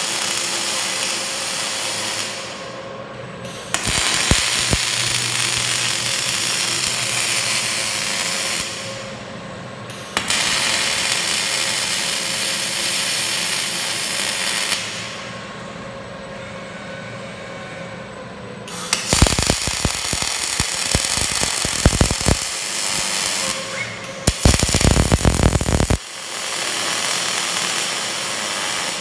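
MIG welding arc burning in stretches of a few seconds with short pauses between beads, mostly a steady hiss, turning to a rapid crackling sputter in the later part.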